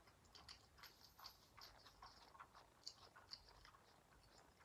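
Faint chewing of a mouthful of yakisoba noodles: a steady run of soft, irregular mouth clicks.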